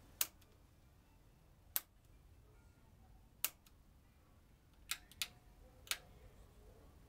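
Six sharp clicks at uneven intervals of about a second or less: a Telequipment D43 oscilloscope's rotary front-panel selector knob being clicked from one position to the next, changing the trace's range.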